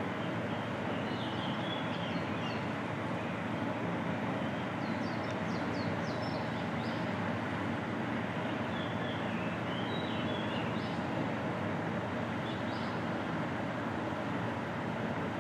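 Outdoor ambience: a steady background noise with small birds chirping in short phrases now and then.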